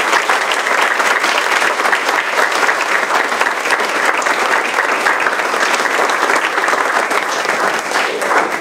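Audience applauding steadily, tapering off at the very end.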